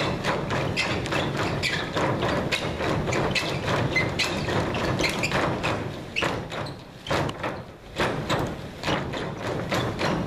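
Many dancers' feet landing together on a stage floor as they jump and hop in unison, a rhythmic pattern of about two to three thuds a second, with a short lull about two thirds of the way through.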